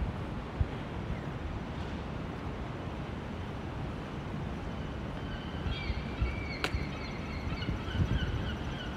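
Steady outdoor city background hum, with small birds chirping in quick repeated notes from about halfway through and one sharp click near the end.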